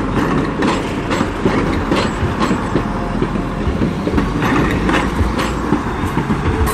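Class 175 diesel multiple unit rolling slowly through the station, its underfloor diesel engines running with a steady low rumble. Its wheels give irregular clicks and clacks over the rail joints and points.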